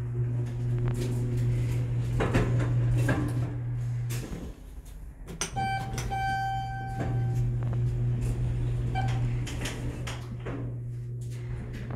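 Elevator car interior with a steady low hum that drops out for about a second near the middle. As the floor button is pressed, an electronic chime sounds for about a second and a half, followed by a shorter beep a few seconds later, among a few knocks and rattles.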